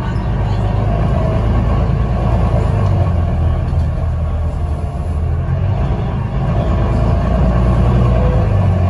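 Bus engine and road noise heard from inside the passenger saloon as the bus drives along: a steady low rumble whose engine note dips a few seconds in and climbs again near the end.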